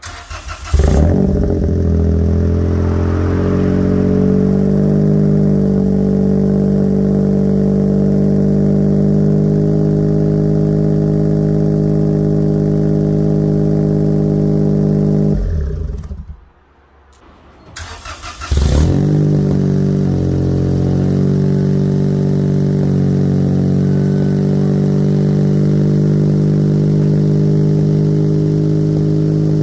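Suzuki Alto Works' small three-cylinder turbo engine, through an aftermarket Izumi exhaust, starting and idling steadily while warming up from cold. About halfway it dies away, and about two seconds later it starts again and settles back into a steady idle.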